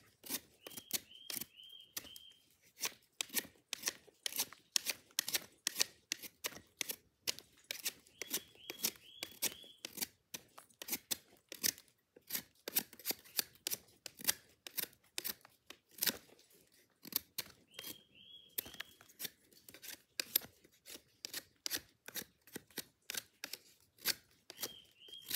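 Dull high-impact-ceramic Spyderco Mule Team blade carving a stick of rain-softened wood: a steady, irregular series of short scraping cuts, a few a second, the edge too dull to slice cleanly.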